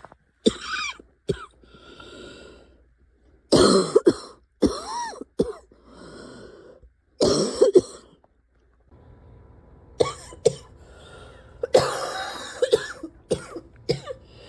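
A person coughing over and over, in fits of several harsh coughs, with quieter breaths in between.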